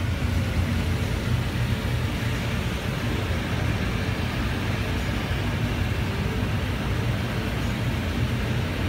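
Automatic car wash in operation: a steady rush of high-pressure spray from the prep robot's nozzles at about 800 psi over a low, even hum of the wash machinery.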